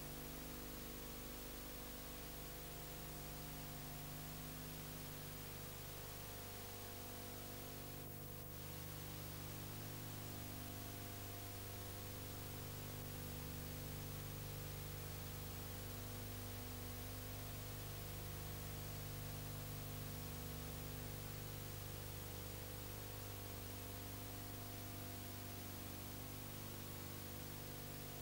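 Steady electrical hum and hiss with nothing else in it: the noise floor of a silent film's tape transfer. A single brief click sounds about eight seconds in.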